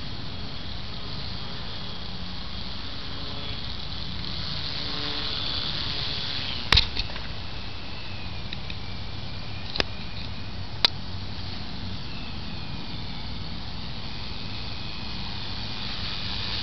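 Faint whine of a small electric RC plane's motor and propeller in flight, wavering in pitch, over a steady hiss. A few sharp clicks cut through, the loudest about seven seconds in.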